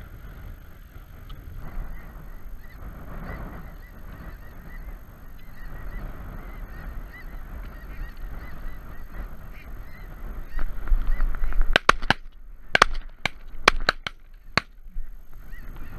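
A flock of snow geese calling overhead in a steady chorus of honking. About twelve seconds in, a rapid volley of about ten shotgun shots from several hunters, the loudest sounds, over about three seconds.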